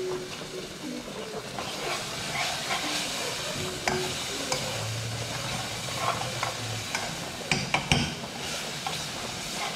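Spoon stirring and scraping in a pot of food sizzling over a gas burner, with steam hissing. A few sharp clacks of the spoon against the pot near the end.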